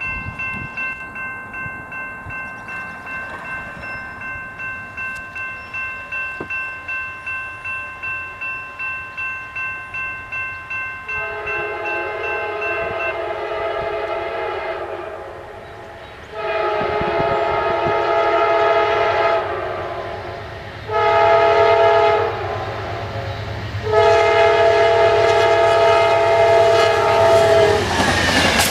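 A bell rings steadily about twice a second. Then an Amtrak diesel locomotive's horn sounds the grade-crossing signal, long, long, short, long, as the train approaches. A low engine rumble builds under the horn, and the train clatters past near the end.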